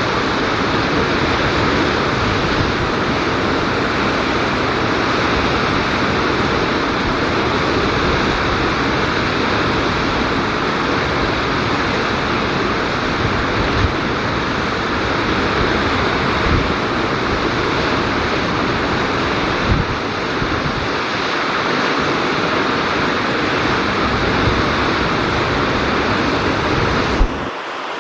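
Steady rushing of water and wind, with a few short low thumps of wind buffeting the microphone. The noise drops off suddenly near the end.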